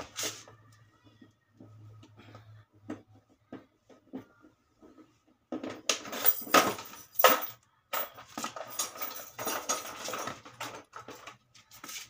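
A few light clicks, then from about halfway a run of metallic clattering and clinking as hand tools and screws are rummaged through to pick out a screw and a short screwdriver.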